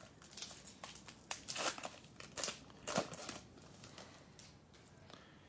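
Trading-card pack wrapper being torn open and crinkled by hand: a run of sharp crackles for about three seconds, loudest twice, then quieter rustling as the NBA Hoops cards are pulled out.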